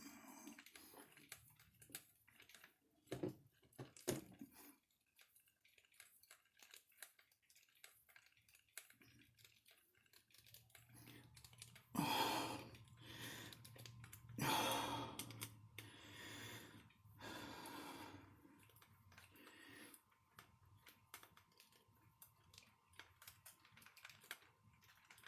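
Small, scattered clicks and ticks of a hand screwdriver turning small screws into a plastic RC car chassis. There are three louder, rustling noises of about a second each around the middle.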